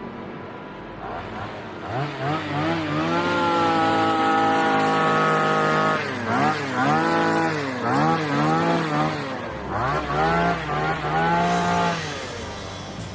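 A motor vehicle engine revving in four runs, each quickly rising in pitch, holding steady and then dropping away.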